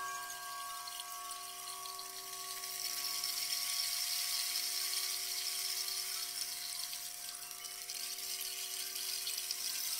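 Sound-bath chime, struck just before, ringing on with several steady tones that slowly die away, under a high shimmering hiss that swells in the middle and eases off.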